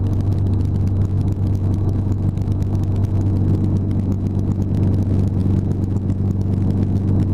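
Hughes 269B light helicopter's four-cylinder Lycoming piston engine and rotor running steadily, heard from inside the cockpit as it hover-taxis low along a runway: a loud, even low drone with a fast fluttering beat over it.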